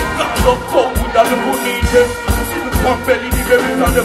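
Live dancehall performance: a deejay singing and chanting into a microphone over loud band music with a strong, repeating bass beat.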